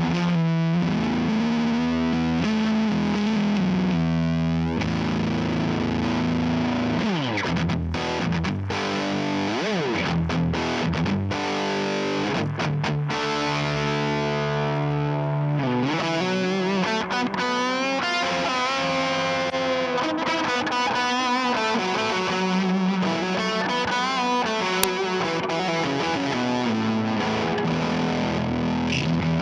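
Squier Jazzmaster electric guitar played through three overdrive pedals stacked at once (Timmy, Basic Audio Futureman and Skreddy Screwdriver), giving a distorted, higher-gain tone. Held chords open the passage, a slide down follows, then single-note lead lines with bends and vibrato.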